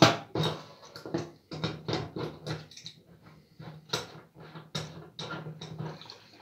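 Adjustable wrench turning the valve cartridge out of a faucet body: a string of irregular metallic clicks and scrapes as the wrench grips and the threads turn, thinning out toward the end.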